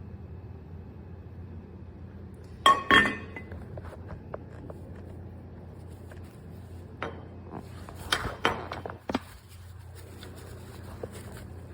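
Kitchenware clinking: two sharp clinks about three seconds in, then a quick run of clinks and knocks near the end, over a steady low hum.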